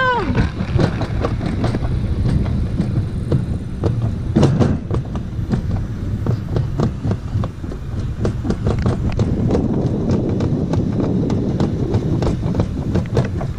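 Summer toboggan sled running fast down a stainless-steel trough track: a loud, continuous rumble and rattle full of small clicks and knocks, with a louder clatter about four and a half seconds in.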